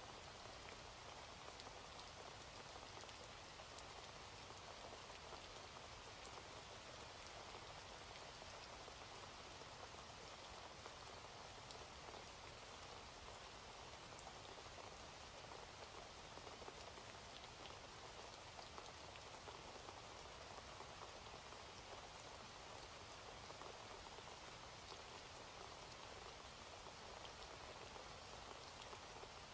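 Faint, steady rain falling, an even hiss with scattered tiny drop ticks.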